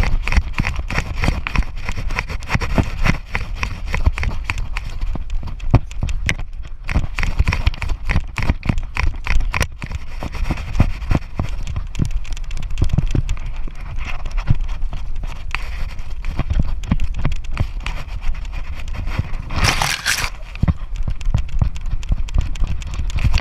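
A GoPro being jostled on the move: rapid, irregular knocking and rubbing over a low rumble, with a louder rustling burst about twenty seconds in.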